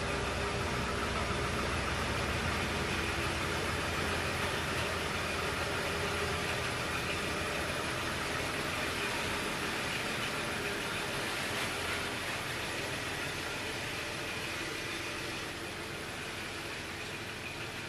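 1989 Dodge D100 pickup's engine running as the truck drives off, a steady engine sound that grows fainter over the last several seconds as it pulls away.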